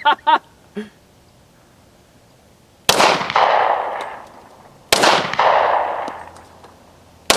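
Gunshots outdoors: two shots about two seconds apart, then a third at the very end, each a sharp crack followed by a long rolling echo.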